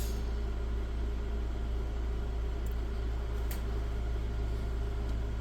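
Steady low hum with a constant hiss over it, and a couple of faint clicks about halfway through.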